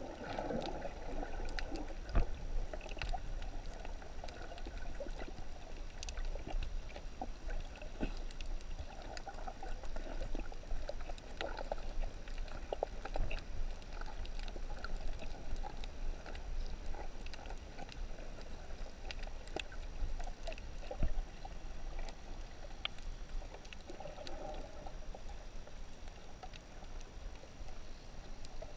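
Underwater sound picked up by a GoPro in its waterproof housing: a muffled wash of moving water with scattered sharp clicks and crackles.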